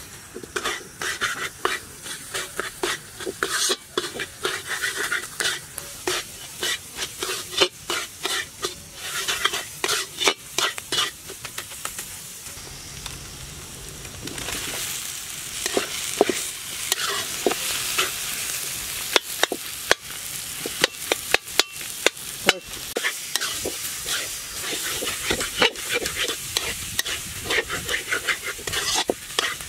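Food being stirred in a hot pan of oil: repeated scraping and knocking strokes of the stirring utensil against the pan over a sizzle. The sizzling grows louder about halfway through.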